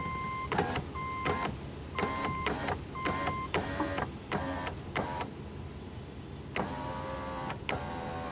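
Car's warning chime beeping about once a second for the first few seconds, with sharp clicks in between. Near the end the power window motor runs briefly twice, lowering the door glass.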